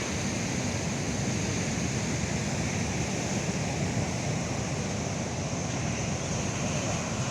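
Heavy sea surf breaking steadily on a beach, a continuous rushing wash of rough, storm-driven waves, with wind on the microphone.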